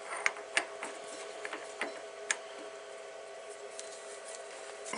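A handful of sharp, light metallic clicks and taps in the first two and a half seconds, over a steady machine hum from the milling machine.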